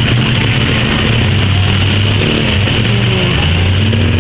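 Demolition derby cars' engines running and revving loudly over a steady wash of noise.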